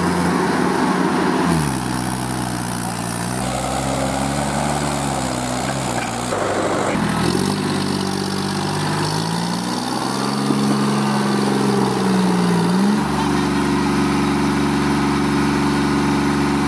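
Diesel tractor engines working hard in deep mud, the engine note rising and falling as the throttle changes, with a few sudden shifts in pitch.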